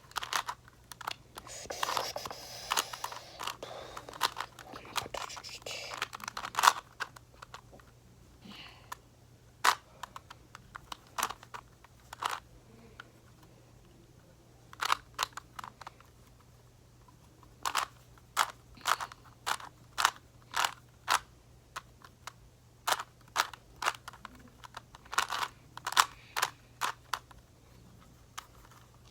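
Plastic clicks and clacks of a Rubik's Cube's layers being twisted, in irregular runs of quick turns with short pauses between.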